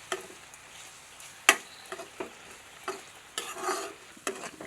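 Chopped onions frying in butter and oil, stirred in the pan: irregular scrapes and knocks of the stirring utensil against the pan over a faint sizzle, the loudest knock about a second and a half in. The onions are being cooked until they brown.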